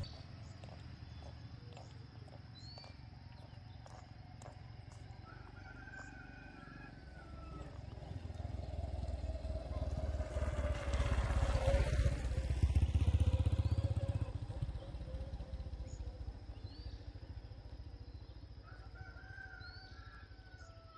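A motor vehicle passes by: its engine grows louder to a peak a little past halfway, drops in pitch as it goes by, then fades away. Chickens call a few times, faintly, before and after it passes.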